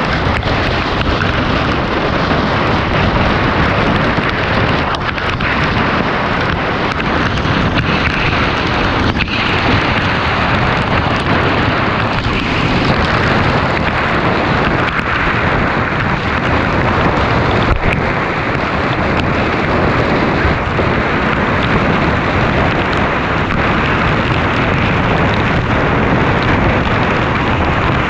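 Dirt bike being ridden: a loud, steady rush of wind noise over the microphone, mixed with the engine running.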